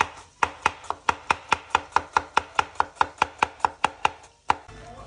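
Chef's knife slicing an onion thinly on a wooden cutting board: quick, even chops, about five a second, with the blade knocking on the board each stroke. The chopping stops near the end, with one last chop after a short pause.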